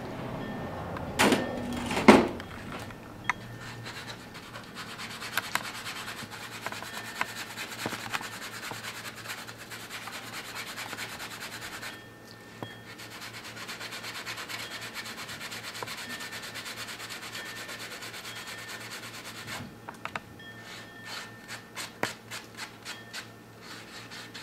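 Flattened end of jewelry wire being sanded on a sanding block: a steady scratchy rubbing that stops briefly about halfway, smoothing the hammered wire's edges. Near the start there are two sharp knocks, and near the end a run of light clicks.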